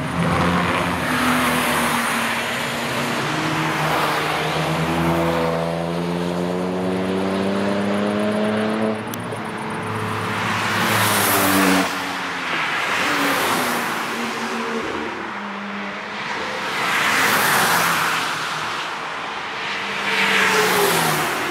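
Cars driven hard on a racetrack, engines revving as they pass one after another. The engine pitch climbs steadily for the first nine seconds or so, then comes a series of separate loud pass-bys, each with the pitch dropping away afterwards.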